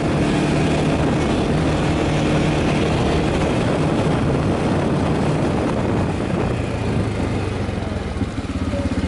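ATV engine running steadily while riding; about six seconds in its note drops as it slows down.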